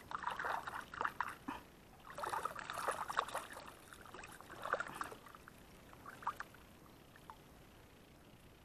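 Hands and a freshly caught eel being swished and splashed through shallow paddy-ditch water to wash it. Irregular splashing for the first five seconds or so, then only a few small drips and splashes.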